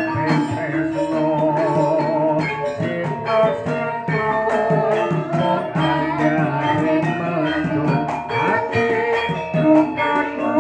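Javanese gamelan ensemble playing a piece: struck bronze kettle gongs and keyed metallophones ringing over a steady beat of hand drums and gongs, with a singer on a microphone carrying a wavering melody.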